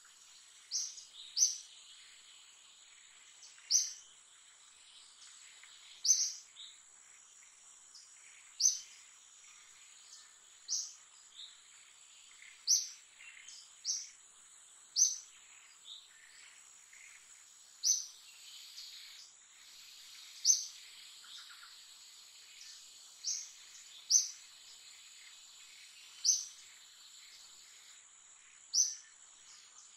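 A bird repeating one short, high-pitched chirp every two seconds or so, over a steady high insect drone.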